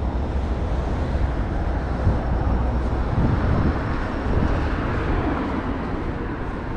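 City street traffic: a vehicle passing close by, swelling about halfway through and then fading, over a steady low rumble.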